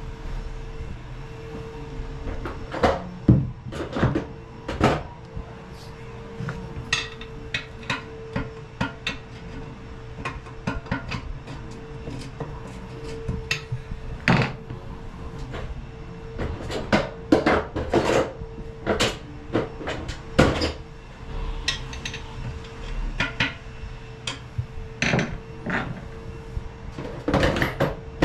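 Irregular knocks, clinks and clatters of plumbing tools and fixture parts being handled as a toilet is taken out, some sharp and ringing, over a faint steady hum.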